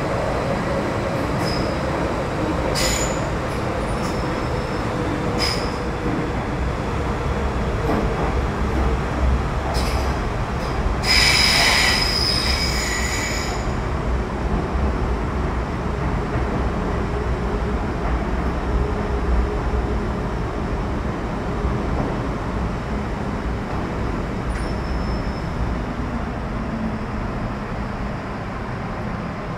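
Metro-Cammell M-Train (CT-Stock) electric multiple unit with GEC GTO chopper traction, running between stations and heard from inside the car: a steady low rumble with a faint tone that slides slowly down in pitch. Short high squeals from the wheels come a few times, and a longer, louder squeal comes about 11 seconds in.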